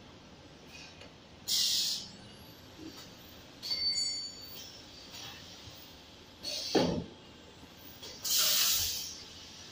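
Vertical form-fill-seal packing machine for thick paste cycling. Four short bursts of air hiss come about two seconds apart as its pneumatic sealing and cutting jaws work. One burst, about two-thirds in, comes with a low clunk.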